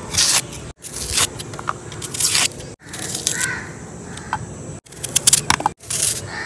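Kitchen knife scraping and peeling the papery skin off red onions, then cutting into the onion, in short scratchy bursts broken by a few abrupt silent gaps.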